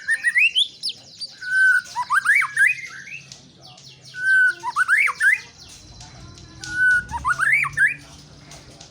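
White-rumped shama singing: four repeats of the same whistled phrase, a held note followed by quick swoops up and down in pitch, with fainter high chirps from other birds behind.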